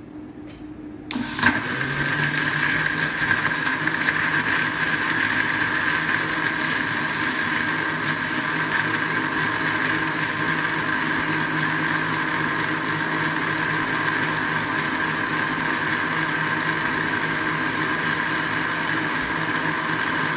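Electric kitchen blender switched on about a second in and running steadily at one speed, its motor whirring as it blends yogurt and ice cubes into lassi.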